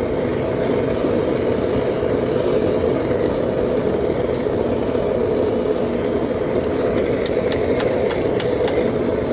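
Propane burner of a homemade foundry furnace firing with a steady rushing noise, with a few sharp light clicks near the end.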